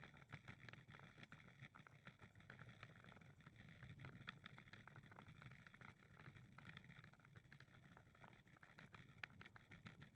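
Near silence: faint outdoor background noise with scattered light ticks.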